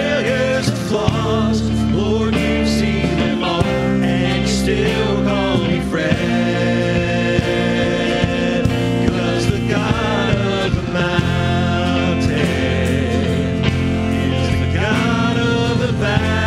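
Live contemporary worship band performing a song: male and female voices singing the melody over electric guitar, bass guitar, drums and keyboard.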